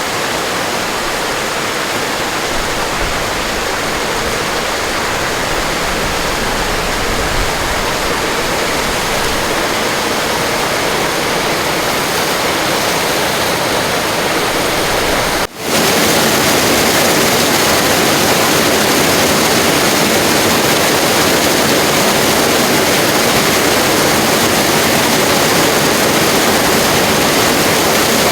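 Hot-spring water of the Yubatake rushing and cascading in a steady, loud roar of falling water. It breaks off for an instant about halfway, then resumes slightly louder.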